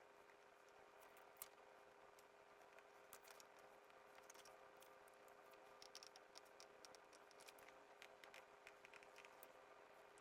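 Near silence: faint room hum with scattered soft clicks and light scratches, more frequent in the second half.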